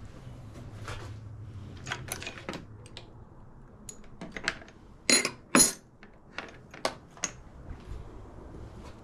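Scattered clicks and light metallic clinks of hand tools and small parts being handled while working on the motorcycle's turn-signal wiring connectors and clips, with two sharper clinks about five seconds in.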